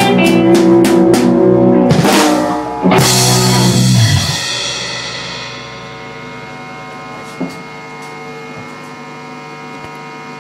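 Rock band playing, drum kit and electric guitar: regular cymbal strokes, then two big crash hits about two and three seconds in, after which the chord and cymbals ring out and fade to a quieter, steady ringing.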